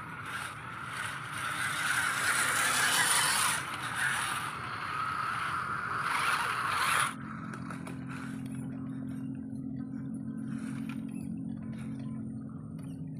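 A WPL C24-1 RC trail truck's electric motor and gearbox whining as it drives past, with its tyres scraping through mud and grass; it swells louder as it nears and cuts off sharply about seven seconds in. After that comes a quieter low steady hum with a few ticks.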